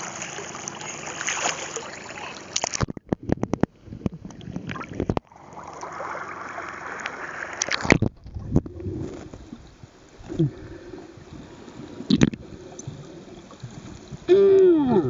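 Seawater splashing and sloshing around a camera at the surface, with choppy cutouts as it dips in and out of the water, then muffled underwater sound with scattered clicks. A muffled voice cries out through a snorkel near the end.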